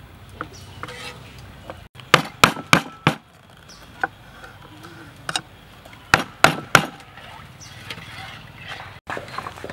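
A cleaver's blade chopping down into the lids of tin cans, sharp metal knocks that punch holes to open the cans. The knocks come about a dozen times, mostly in quick runs of two to four.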